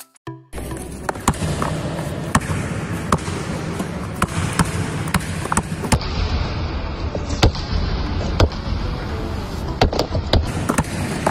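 Basketball being dribbled on a hard sports-hall floor: sharp, irregular bounces, roughly one or two a second, over a steady background hiss.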